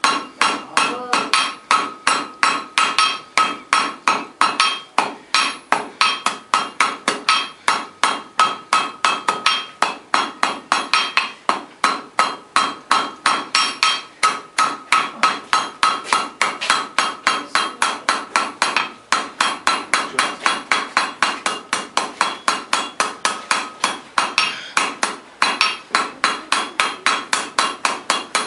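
Blacksmith's hand hammer striking hot iron on an anvil in a steady run of rapid blows, about four a second, each with a metallic ring. The bar is being drawn from round to square and rounded back up.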